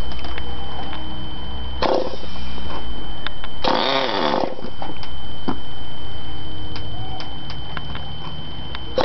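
Handheld electric starter whirring in short bursts as it is pressed against a model car's glow-fuel engine to crank it: once about two seconds in, longest for nearly a second around four seconds in, and again at the end. A steady low rumble runs beneath.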